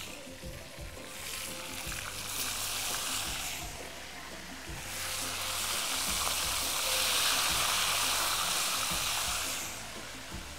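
Spiced chicken halves sizzling in hot oil in a frying pan as they are laid in and moved around. The sizzle swells louder past the middle and eases near the end.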